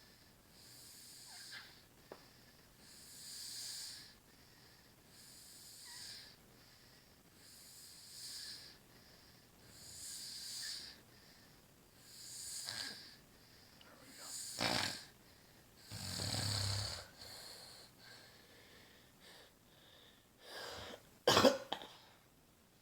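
A sleeping woman snoring, a breath about every two seconds, mostly wheezy and hissing, with one deeper, rumbling snore about three quarters of the way through. A sudden, much louder sharp sound near the end.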